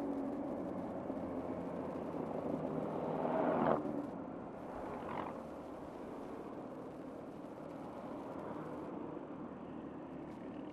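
Kawasaki Z1000's inline-four engine and road noise while riding. The sound builds for nearly four seconds to a brief rising sweep, then drops off and runs on lower and steady as the bike eases off.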